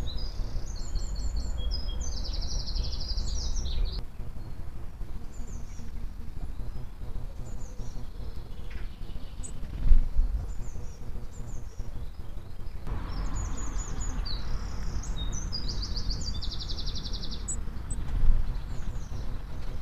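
Garden birds singing high, rapid trilled phrases in the first few seconds and again from about two-thirds of the way through, over a steady low rumble of background noise. Two brief knocks, one about halfway and one near the end.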